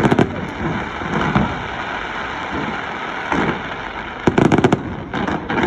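Fireworks going off: rapid strings of sharp crackling pops at the start and again through the last second and a half, with a few duller bangs between, over a steady background din.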